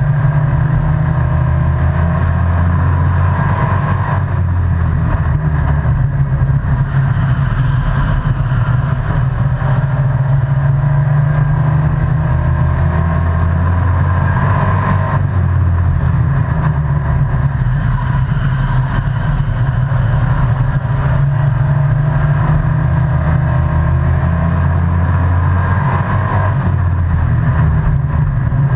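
Race truck's engine at racing speed, heard from inside the cab with road and wind noise. The engine note builds, then drops abruptly three times, about eleven seconds apart, as the throttle comes off for the turns of the oval.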